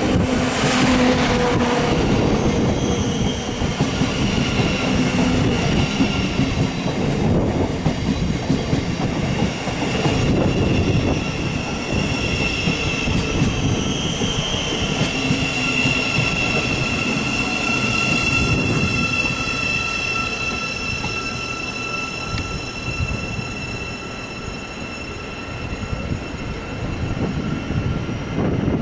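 Thameslink Class 700 (Siemens Desiro City) electric multiple unit moving along the platform: a rumble of wheels on rail with several steady high-pitched whines held for many seconds.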